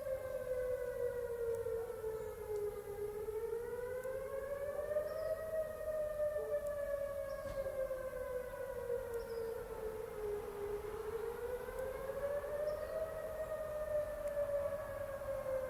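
Civil defense air raid siren wailing, its pitch sliding slowly down and back up twice, about every seven to eight seconds.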